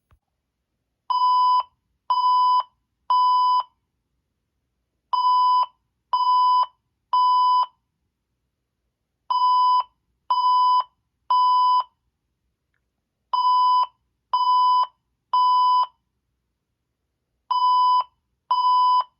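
Fire alarm speakers sounding the temporal-three evacuation tone: three steady, evenly pitched beeps, each half a second long, then a pause, repeating about every four seconds. This pattern is the standard signal to evacuate the building.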